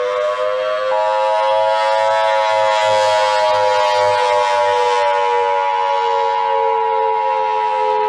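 Civil defense siren wailing, its pitch slowly rising and then falling. About a second in, the steady two-tone Emergency Alert System attention signal joins it.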